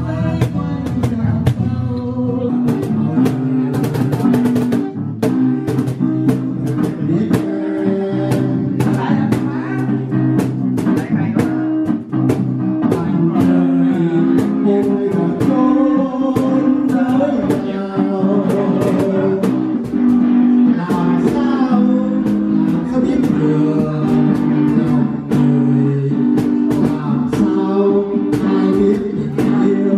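Live acoustic music: an acoustic guitar strummed, a cajón struck by hand in a steady beat, and a man singing into a microphone.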